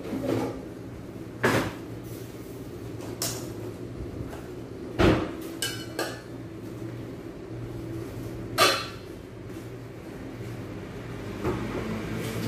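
Household kitchen clatter: a handful of separate sharp knocks and a short ringing clink, like a dish or cupboard door, over a steady low hum.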